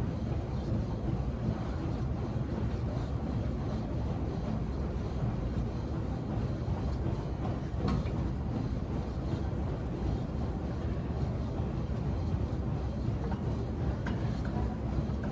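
Steady low rumble of gym room noise, with a single sharp click about eight seconds in and a couple of faint ticks near the end.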